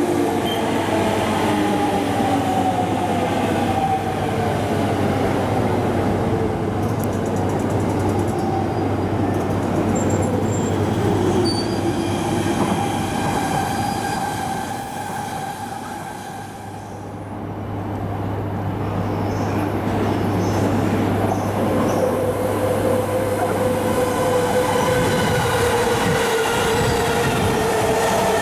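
JR East electric commuter trains running through the station: wheel and track rumble with the whine of the traction motors gliding in pitch. The sound fades around the middle as one train moves off, then builds again as another comes in.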